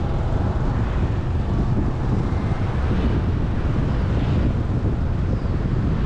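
Steady wind buffeting on the microphone of a moving camera, over a low rumble of road traffic.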